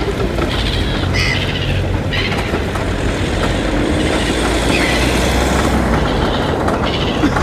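Low, steady rumble of a bus engine, swelling in the middle. A few short, high bird calls cut through it.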